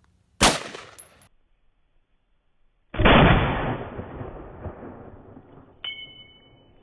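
Two gunshots with no speech: a sharp crack about half a second in, then a louder report about three seconds in that dies away over several seconds. One of them is a single .223 round fired from an AR-15 rifle.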